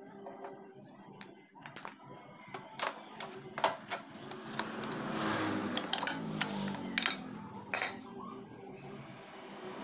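Irregular sharp metallic clinks and taps from hand tools, bolts and cover parts being handled while the side covers come off a Honda Astrea Grand's engine. A steadier noise swells about halfway through and fades near the end.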